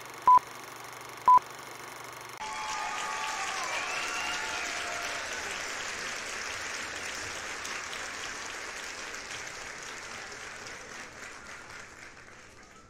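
Film-leader countdown beeps, short single-pitched tones about a second apart, twice right at the start over a steady hum. About two and a half seconds in, crowd applause and cheering with a few whistles cuts in and slowly fades.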